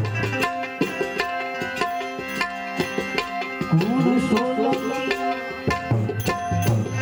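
Live Indian folk music through a PA system: tabla playing a fast, steady rhythm under melodic instruments holding sustained notes, with a short gliding melodic run about four seconds in.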